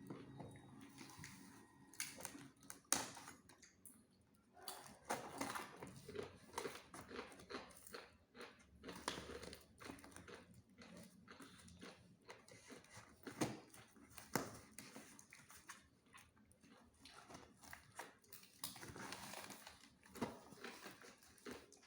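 Packaging being handled and unwrapped: irregular rustling with scattered sharp clicks and taps.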